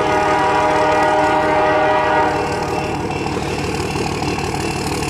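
Diesel freight locomotive's air horn sounding one long blast as the train approaches the crossing, over the rumble of the locomotive. The horn starts abruptly, is loudest for about the first two seconds, then weakens and trails on.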